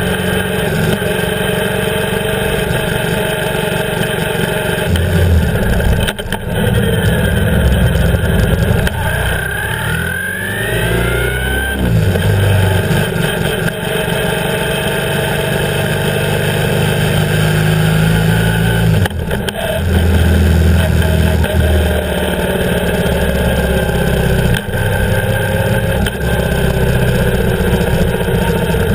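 BMW R 1150 GS's air/oil-cooled flat-twin boxer engine running under way, heard close up with wind and road noise. The engine note rises and falls with the throttle, with a few short breaks in it.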